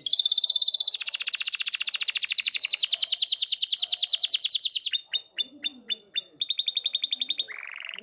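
Male domestic canary singing in breeding condition, calling to a female. It opens with a held whistle and runs into a long, very fast trill for about four seconds. It then gives a string of separate notes, another quick trill and a short swooping note to close.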